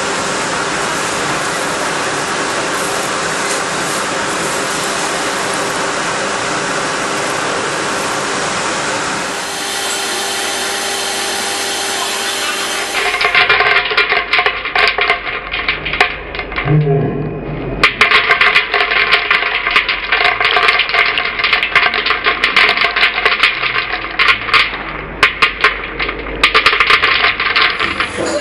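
Cooling tray of an FZ94 lab coffee roaster running: a steady fan rush as freshly roasted beans are stirred. From about 13 seconds in, roasted coffee beans clatter into a stainless-steel bowl in quick, irregular rattling clicks.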